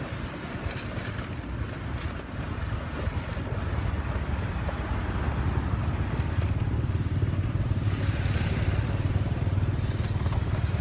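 Motorbike engine running steadily at low speed, with road and wind noise; the low rumble grows somewhat louder about halfway through.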